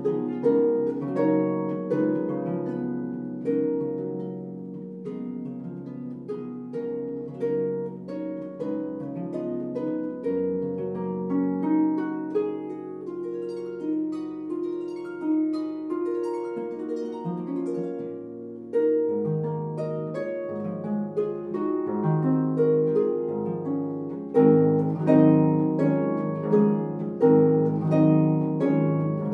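Solo concert pedal harp playing a flowing passage of plucked, ringing notes and chords, growing louder about five seconds before the end.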